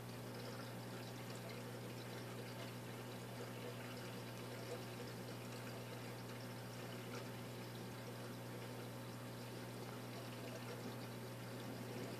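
Saltwater aquarium's water circulation running: steady trickling and splashing of water over a low, constant pump hum.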